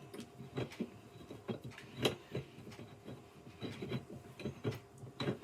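Gaming chair parts and screws being handled during assembly: irregular light clicks, taps and rubbing, with a few sharper knocks, the loudest about two seconds in.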